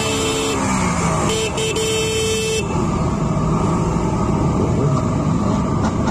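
A vehicle horn blows a steady tone for the first two and a half seconds while a motorcycle engine's revs fall away. Then motorcycle engines run and idle in a group.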